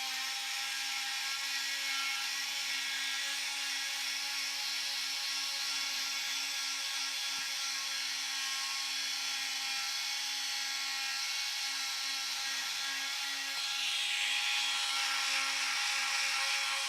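Milwaukee M12 cordless oscillating multi-tool running with its sanding pad, sanding wood: a steady buzzing hum, a little louder and brighter for the last few seconds.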